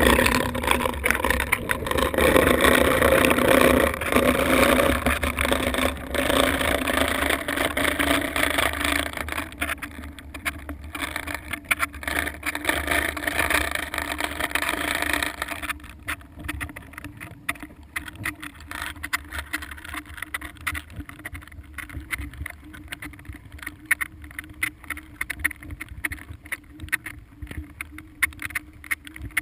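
Sea water heard through a submerged camera housing: a loud rush of water and bubbles that drops off sharply about sixteen seconds in, leaving faint crackling and clicks over a steady low hum.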